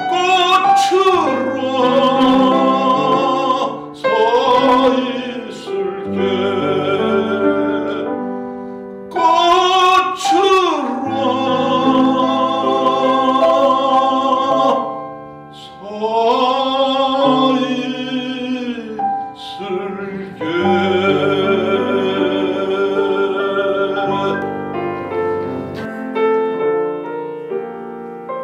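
A male classical singer sings a Korean art song with wide vibrato, accompanied by a Yamaha grand piano; the music fades over the last few seconds.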